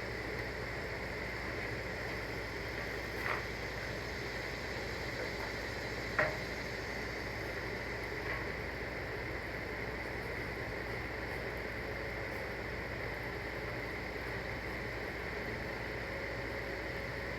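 Steady background noise with a faint constant hum, broken by three brief faint knocks, the loudest about six seconds in.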